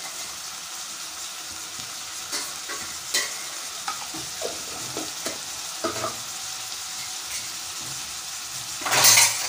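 Meat, onions and tomatoes frying in an aluminium pot, a steady sizzle with a few light clinks, and a short, louder rush of noise near the end.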